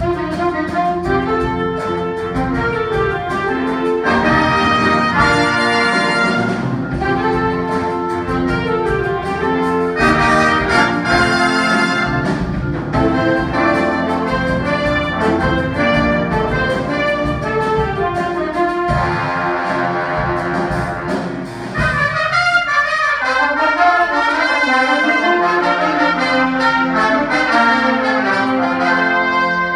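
Orchestral music with brass instruments, trombone among them, several parts playing at once. About two-thirds of the way through the low notes drop away and the higher brass lines carry on.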